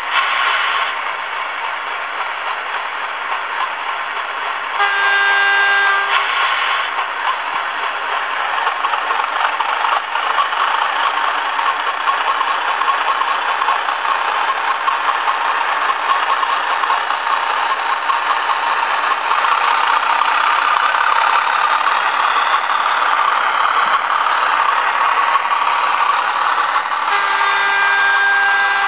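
Zimo Class 31 diesel soundtrack playing from the sound decoder's small speaker in an N gauge Graham Farish model: the diesel engine running throughout, with a horn blast about five seconds in and another near the end.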